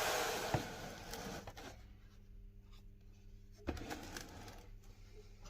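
Meat grinder crunching a mini chocolate ice cream cone: a crackling, scratchy grinding that is loudest at first and fades, with a couple of sharp clicks and a faint steady hum underneath.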